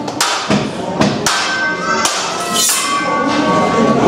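Teppanyaki chef's metal spatula and knife clanking against each other and the steel griddle: about five sharp strikes in the first two seconds, some leaving a ringing metallic tone.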